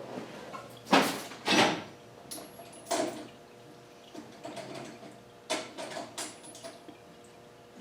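Metal hand tools (17 mm sockets and wrenches) clattering and clinking as they are rummaged through, with a handful of separate sharp knocks, the loudest about a second in.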